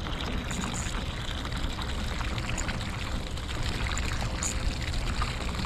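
Steady trickling and splashing of water around a fishing kayak's hull.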